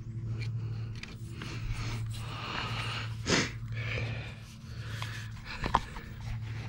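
A person breathing heavily close to the microphone over a low steady hum, with a sharp swish about halfway through and a short knock near the end.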